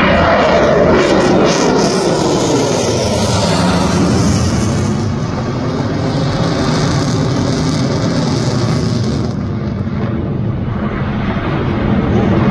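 F-22 Raptor's twin turbofan jet engines on a fast pass: loud jet noise whose pitch falls steadily over the first few seconds as it goes by, then a steady rumble.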